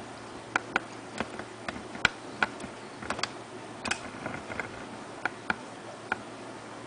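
A pit bull working peanut butter around its mouth, making about fifteen irregular sharp clicks and smacks as it licks and moves about.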